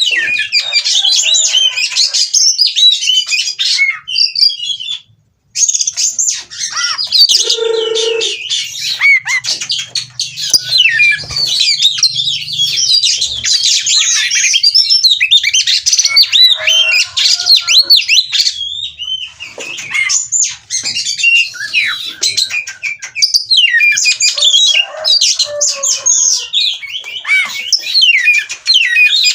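Oriental magpie-robin (kacer) singing a fast, unbroken run of varied high chirps and whistles, with a short break about five seconds in.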